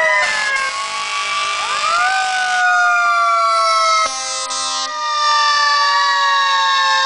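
Emergency vehicle sirens from a passing fire-rescue ambulance and fire engines: a siren winds up about two seconds in, then holds a long wail that slowly falls. A short horn blast sounds about four seconds in.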